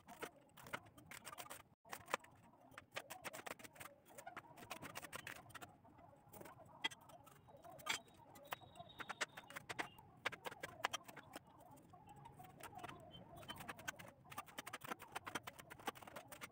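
Faint, irregular taps and clicks of a broad-bladed knife striking a plastic cutting board as onion, green capsicum and green chillies are sliced.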